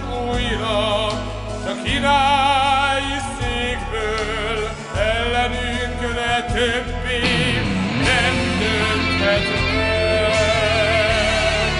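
A man singing long, held notes with wide vibrato over instrumental accompaniment, live rock-opera singing.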